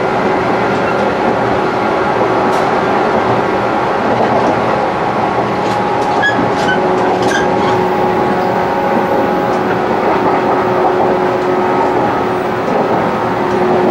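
A passenger train running steadily: a continuous rumble with a steady hum, and a few faint clicks about halfway through.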